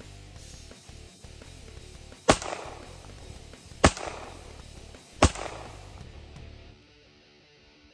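Three 9mm pistol shots from a Rock Island Armory 1911 A1, spaced about a second and a half apart, each followed by a short echo.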